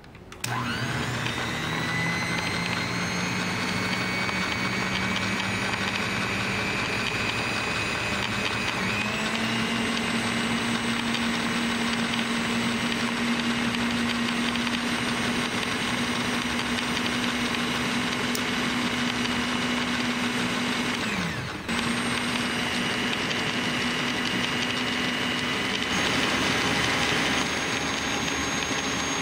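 Electric mixer whining steadily as its wire beaters whip eggs and sugar in a stainless-steel bowl. It switches on just after the start, steps up to a higher speed about nine seconds in, slows almost to a stop around twenty-one seconds, then picks straight back up and runs on.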